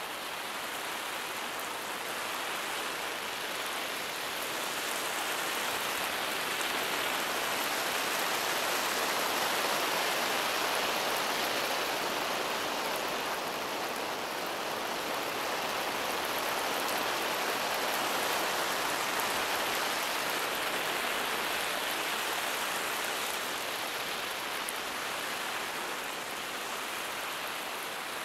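Lawn sprinkler spraying water, a steady hissing patter of droplets that slowly swells louder toward the middle and eases off again near the end.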